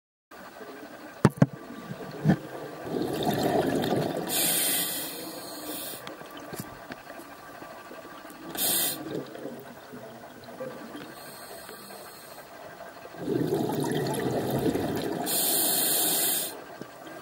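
A scuba diver breathing through a regulator underwater: long rushes of bubbling and hissing come and go twice, with a shorter one in between. A few sharp knocks sound about a second or two in.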